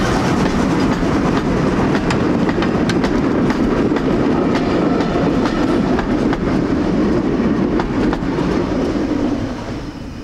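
Vintage railway passenger carriages rolling past close by, their wheels clicking over the rail joints over a steady rumble. The noise falls away near the end as the last coach clears.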